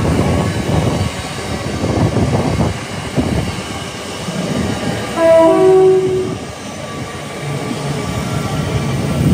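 A train running past with a steady low rumble and wheel noise, sounding a two-note horn about five seconds in, a lower note then a higher one, about a second long and the loudest part.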